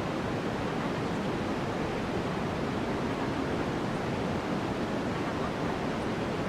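Steady white noise: an even, unbroken rushing hiss, used as the masking layer of a subliminal audio track.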